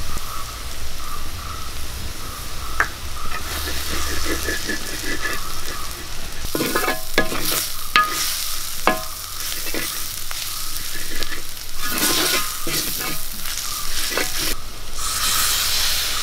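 Sliced onions, chillies and powdered spices sizzling in hot oil in a black pan, with a spatula scraping and stirring through them in strokes that cluster from about six seconds in. The powdered spices (turmeric, red chilli, coriander, garam masala) are being fried into the onion masala.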